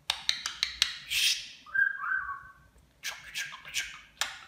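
Budgerigar chattering: sharp clicks and raspy high-pitched bursts, broken by a short gliding whistle about two seconds in, then more chatter.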